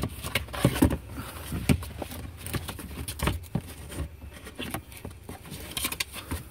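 Irregular taps, clicks and rustles of hands handling a car's interior plastic trim and seat panels, with some handling noise on the handheld microphone.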